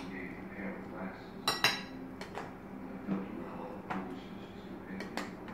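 A spoon clinking and knocking against the inside of a saucepan while cooked apple pieces are scooped out onto a plate: two sharp clinks about a second and a half in, then several lighter taps.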